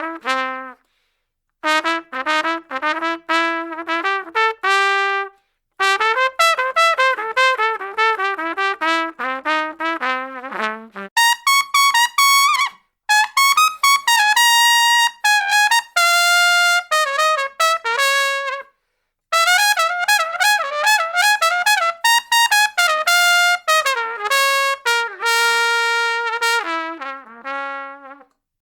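Solo trumpet playing a string of short melodic phrases of quick notes, some ending on longer held notes, with brief silent pauses between phrases.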